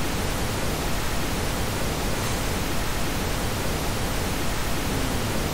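Steady, loud static-like hiss, even across all pitches: a noise overlay masking a blocked section of the soundtrack.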